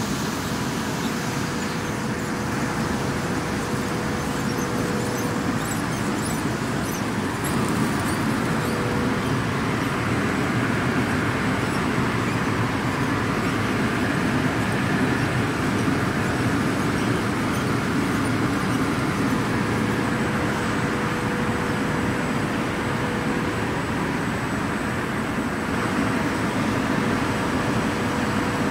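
Flexographic printing press running: a steady mechanical whir from its turning rollers, with a faint steady hum that fades in and out.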